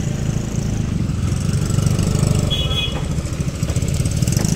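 Motorcycle engine running steadily at low revs, with a short high-pitched tone about two and a half seconds in.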